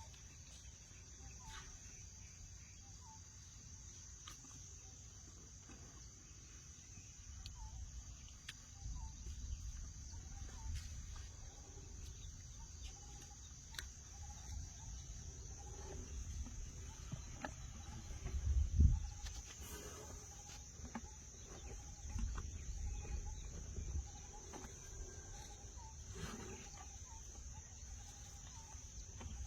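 Insects droning steadily at a high pitch, with faint repeated chirps and several bursts of low rumble, the loudest about two-thirds of the way through.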